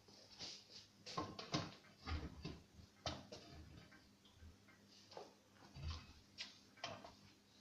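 Irregular knocks and clinks of a steel tyre bar working a tyre bead around the wheel rim on a homemade manual tyre changer, with a few dull thuds among them.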